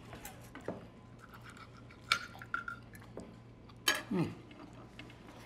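Knives and forks clinking and scraping on china dinner plates as two people cut their food, with a few sharp clinks and a short squeak of a blade on a plate. A brief voiced sound comes about four seconds in.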